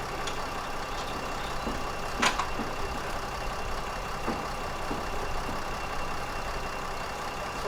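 Heavy delivery truck's diesel engine running steadily at low speed, with a single sharp knock a little over two seconds in.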